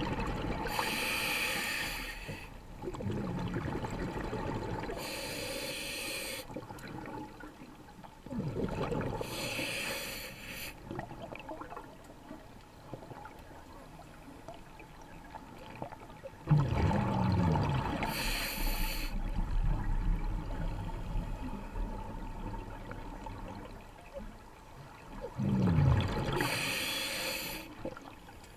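Scuba diver breathing through a regulator underwater: each breath is a short inhalation through the demand valve followed by a rush of exhaled bubbles from the exhaust. This happens five times, several seconds apart.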